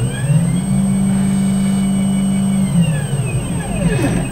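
Stepper motors of a CNC gantry whining as the thread-feeding head travels over the nail board. The pitch rises as the machine speeds up, holds steady for about two seconds, then falls as it slows, with another short move near the end.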